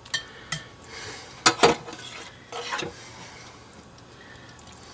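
A spoon spreading thick meat sauce in a slow cooker's crock, with wet smearing sounds and a handful of sharp clinks and knocks against the pot in the first three seconds, then only softer scraping.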